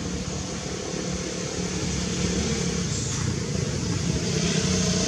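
An engine running steadily, growing gradually louder toward the end, over a steady hiss.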